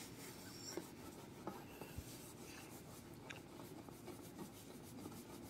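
Very quiet: faint room tone with a few soft ticks and light handling noise.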